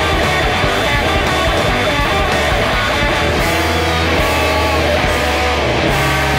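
Electric guitar, a Squier Telecaster, picked over a loud rock band recording with bass and drums.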